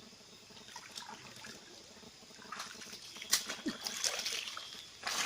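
Water splashing and trickling in a shallow river, growing busier from about halfway through with a run of sharp, irregular splashes.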